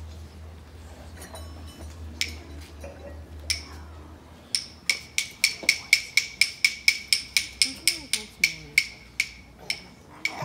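Wooden rhythm sticks struck together by a group of children, first a couple of single clicks, then a steady fast beat of sharp ringing clicks, about four to five a second, starting about four and a half seconds in.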